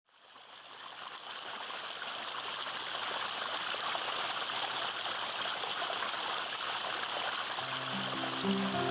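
Water spilling down the rock cascade of a pondless waterfall and stream, a steady rushing splash that fades in over the first couple of seconds. Background music comes in near the end.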